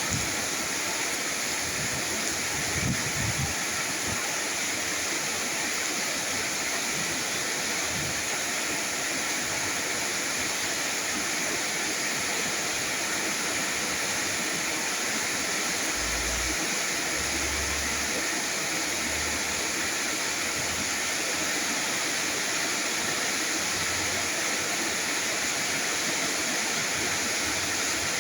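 Steady heavy rainfall, an even hiss that holds at one level throughout.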